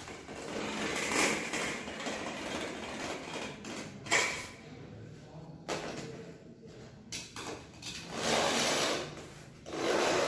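Scraping and rustling from an aluminium straightedge being handled and pressed down on synthetic turf, in several short bursts, with a sharp knock just after four seconds in.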